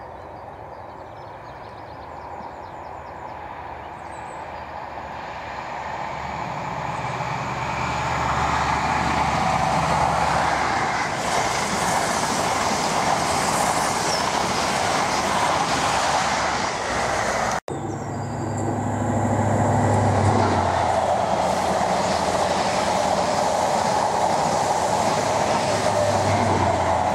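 High-speed express passenger train passing at speed on the main line: a steady rush of wheels on rail that grows louder over the first several seconds as it approaches, with a low running hum under it. A sudden momentary dropout about two-thirds through, then the passing-train noise carries on at full level.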